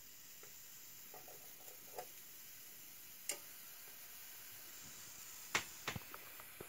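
Faint steady hiss with a few scattered sharp clicks, several close together near the end.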